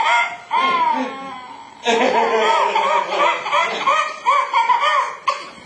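A one-year-old baby's hearty belly laugh: rapid high-pitched bursts of laughter, tailing off about a second in, then breaking out again in a fast run of laughs from about two seconds.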